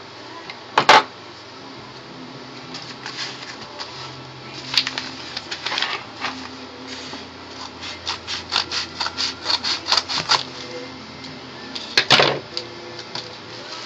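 Padded paper mailer being handled and rubbed by hand: crinkling and rustling, with a sharp crackle about a second in and another near the end, and a quick run of scratchy strokes, about five a second, in the middle.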